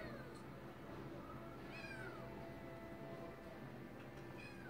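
Kitten meowing faintly, a few short meows that fall in pitch, about two seconds apart. Meowing like this is taken as the kitten wanting attention.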